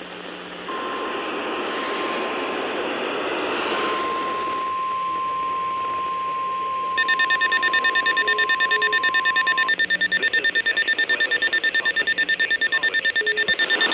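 NOAA Weather Radio warning alarm tone: a steady single tone near 1 kHz over radio hiss, lasting about nine seconds. About seven seconds in, an electronic alarm starts beeping rapidly and keeps going after the tone stops.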